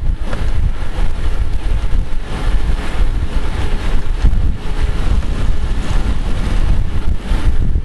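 Wind buffeting the microphone of a camera on a moving bicycle: a loud, uneven low rumble that keeps going, with no engine or voice in it.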